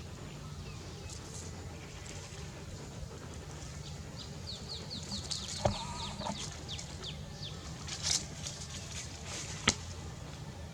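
A run of quick, high chirping calls, each falling in pitch, about four a second for some three seconds, over a low steady hum. Two sharp knocks are also heard, about halfway through and near the end.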